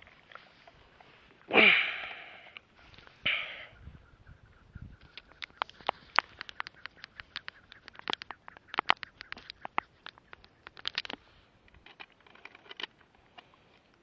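Water splashing and handling noise around a landed bass held in the water: two loud splashes in the first few seconds, then a long run of quick, irregular sharp taps and clicks.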